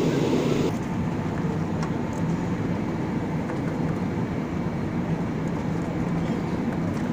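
Steady rumble and hiss of an Airbus A320-216 cabin in descent: engine and airflow noise heard from inside. The noise drops a little in level, and loses some of its hiss, under a second in.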